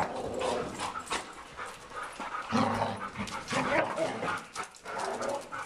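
Dogs whining, yipping and barking at intervals, with a louder call about two and a half seconds in.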